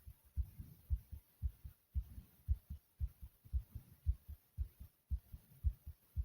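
A person's fast heartbeat: low paired thumps (lub-dub) repeating evenly, a little under two beats a second.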